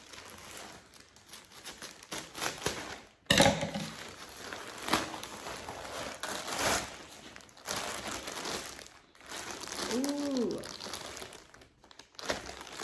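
Thin plastic mailer bag crinkling and rustling unevenly as it is cut open with scissors and the contents are pulled out, with a sharp, loud crackle about three seconds in. Near the end a clear plastic bag rustles as it is handled.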